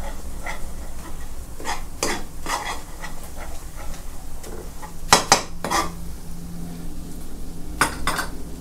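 Metal spatula scraping and clinking against a nonstick wok as a shallot, garlic and sugar paste is stirred to melt the sugar, with a faint sizzle. There are bursts of several quick scrapes, the sharpest about five seconds in and again near the end.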